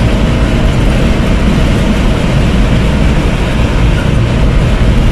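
Steady rumble of engine, tyres and wind from a vehicle driving at speed, with wind buffeting the microphone.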